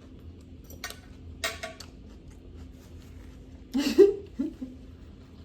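Eating utensils clinking and scraping against a dish, as a few short separate sounds. The loudest comes about four seconds in, together with a brief murmur.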